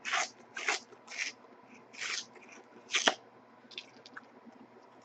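A Dare to Tear trading card's sealed cardboard being torn open by hand: about six short, separate rips and rustles, with a sharper snap about three seconds in.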